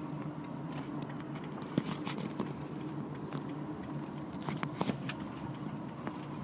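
Steady low drone inside a moving car's cabin, with scattered light ticks and taps clustered about two seconds in and again near five seconds.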